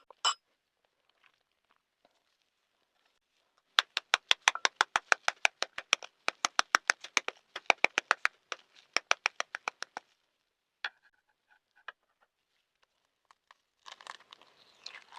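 Balut eggshell being tapped to crack it: a rapid run of sharp taps, about six a second for some six seconds, followed by a few scattered clicks and soft crackling of shell near the end.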